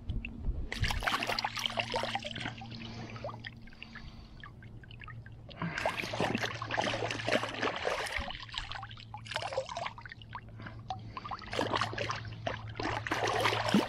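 Hands and a freshly gutted squirrel carcass being swished and splashed in river water to rinse them, in three spells of splashing with short pauses between.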